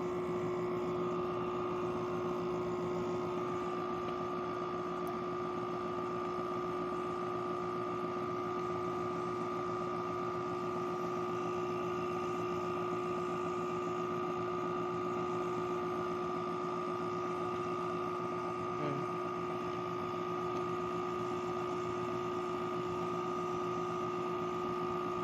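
2016 LG 8,000 BTU portable air conditioner running with its compressor on: a steady hum with two constant tones over the rush of the blower. The rear fan is stuck, which the owner thinks could be broken.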